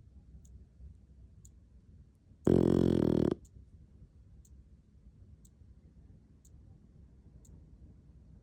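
English bulldog snoring in its sleep: one loud, rasping snore lasting under a second about a third of the way in, with faint breathing in between. A faint tick sounds about once a second throughout.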